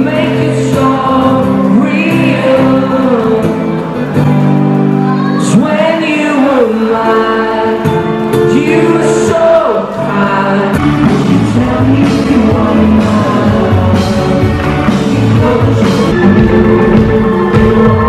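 Live concert music in a large hall, heard from the audience: a singer singing over an acoustic guitar through the venue's PA. About eleven seconds in the music fills out with a steady beat.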